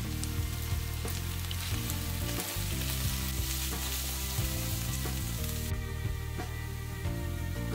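Diced chicken breast and pressed garlic sizzling in hot oil in a nonstick frying pan while a slotted spatula stirs them. The sizzle eases somewhat about three quarters of the way through.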